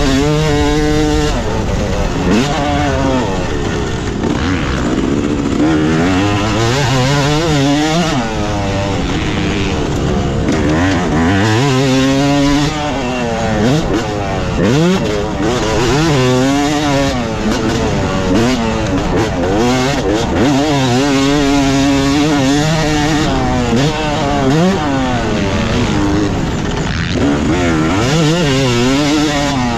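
Yamaha YZ250 single-cylinder two-stroke motocross engine being ridden hard, revving up and falling back over and over as the throttle is opened and shut, the pitch climbing and dropping every second or two.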